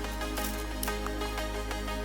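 Background music with sustained bass notes and a light, regular beat.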